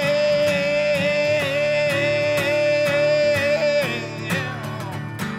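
A man singing one long held note over a strummed acoustic guitar in a country song; the note ends about four seconds in, and the strumming carries on more softly.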